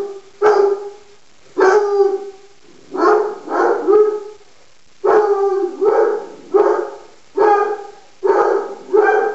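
Dog barking repeatedly, a couple of barks a second, in bunches with short pauses between them.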